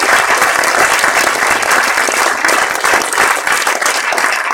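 Audience applauding in a cinema auditorium: a dense, steady patter of many hands clapping, thinning slightly near the end.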